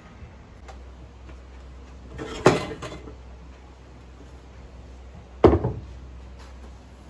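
Two sharp knocks of household things being handled, about three seconds apart, the first followed by a short clatter, over a low steady hum.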